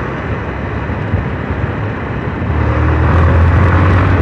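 Hero ZMR motorcycle's single-cylinder engine running on the move under steady wind and road noise; about two and a half seconds in, the engine note comes up and gets louder. The rider says this noise points to a fault near the engine, not directly in it.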